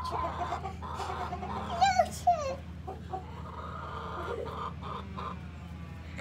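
Hens clucking, with a few short, loud, wavering calls about two seconds in.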